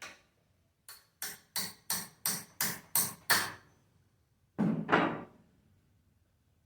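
A hammer striking metal: eight quick, evenly spaced blows at about three a second, growing louder, then a heavier, longer clattering knock.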